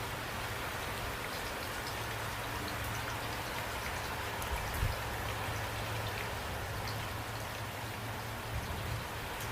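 Steady rain falling, a continuous even hiss with scattered individual drops ticking, and a low rumble underneath. A single soft thump about five seconds in.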